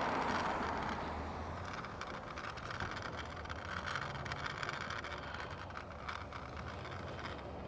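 Road traffic: cars passing on a multi-lane road, a steady rush of tyre and engine noise that is louder in the first second or so and then eases off.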